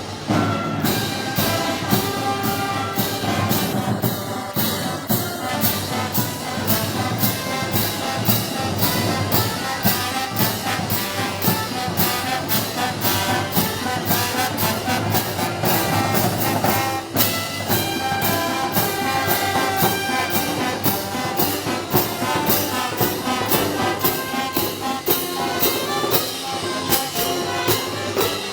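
Brass band playing festival music, trumpets and trombones over a steady percussion beat of about two beats a second.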